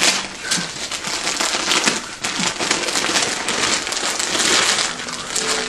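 Gift wrapping paper rustling and crinkling in quick, irregular handfuls as a birthday present is unwrapped.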